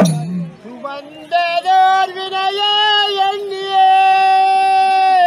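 A single high voice singing a slow, drawn-out line without accompaniment, settling on one long held note for the last second and a half: a koothu folk-theatre song. A drum note from the preceding drumming dies away at the very start.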